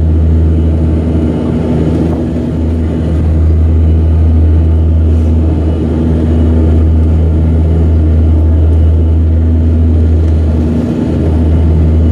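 Cabin drone of a Dash 8 Q300's Pratt & Whitney PW123 turboprops and four-bladed propellers at climb power just after takeoff, heard from a window seat beside the engine: a loud, steady low hum with a few higher steady tones over it, swelling and dipping slightly in level.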